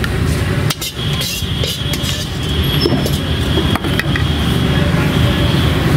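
Steady low roar of a gas burner flame under a steel kadai. A ladle stirring thick gravy gives a few sharp clinks against the pan.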